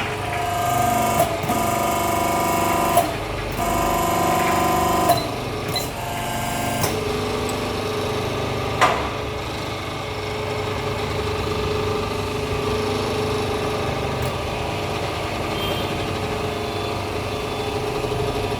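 Hydraulic hose crimping machine running through a crimp, its pump giving a steady whine that stops and restarts in the first few seconds, then settles to a lower pitch about seven seconds in, with a few sharp clicks along the way.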